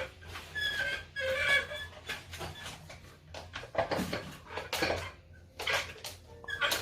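Duck-shaped toy 'vacuum cleaner' making a short, squeaky, chirp-like sound from about half a second in, followed by scattered plastic clacks and knocks as it is pushed and handled.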